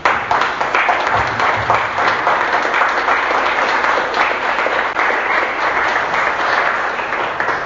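An audience applauding, many hands clapping at once, after a performer is introduced; it starts suddenly and dies away suddenly near the end.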